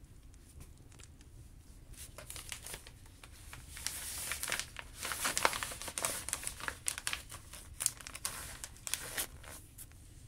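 Clear plastic vacuum-sealer bag crinkling as hands open it and push sausages inside. The crinkling starts about two seconds in, is loudest around the middle, then comes in short bursts and stops near the end.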